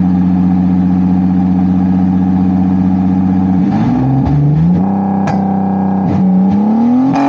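Lexus IS300's 2JZ inline-six engine held at steady high revs for about three and a half seconds, then falling and climbing again as the throttle is worked, with a sharp crack about five seconds in.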